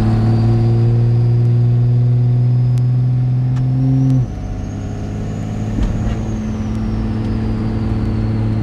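Dodge Ram's 5.9 Cummins inline-six turbodiesel pulling under load, heard from inside the cab: a steady deep drone that drops suddenly in level about four seconds in as the transmission is shifted. A faint high whistle rises and then falls over it.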